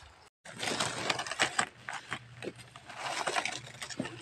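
Hands digging in dry, crumbly soil and dry leaf litter, with irregular scrapes, crackles and crunches as the earth is broken up in a hunt for June beetles.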